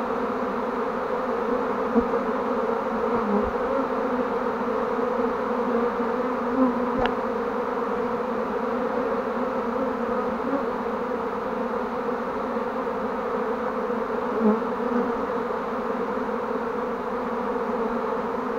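A honeybee swarm buzzing close by, a dense steady hum from many bees on the swarm box and in the air around it. There are a few faint knocks.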